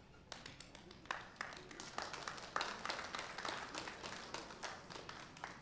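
Audience applauding: many hands clapping, starting a moment in, strongest midway and dying away near the end.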